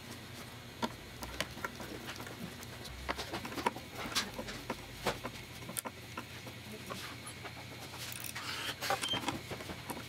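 Hand screwdriver turning a small screw through a limit-switch circuit board and spacer into a wooden frame: irregular light clicks and small scraping sounds from the screwdriver tip and screw.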